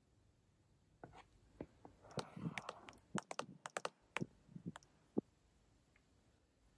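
Quiet, quick clicks and taps of typing on an iPad's on-screen keyboard with a stylus, about a dozen over some four seconds, then stopping.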